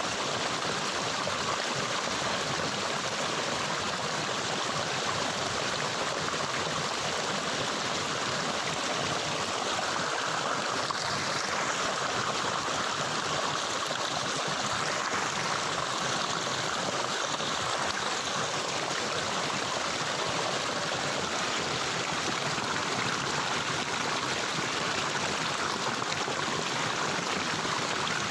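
Stream water running steadily over rocks, an even rushing and gurgling with no change in level.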